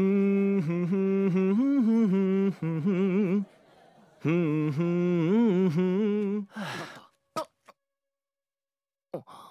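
A man's voice humming a tune without words, in two phrases of held notes that waver slightly in pitch, with a short pause between them. It ends in a short breathy sound and a couple of faint clicks.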